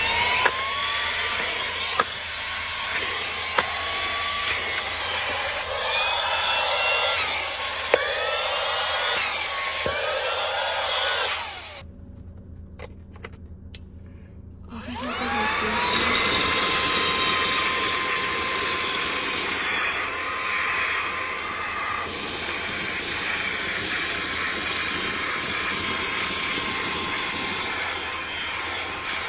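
Handheld cordless vacuum cleaner running with a steady whine, its pitch rising and falling in short arcs as the nozzle works. It switches off about 12 seconds in, then starts again about three seconds later, its motor whine sliding up in pitch to a steady run.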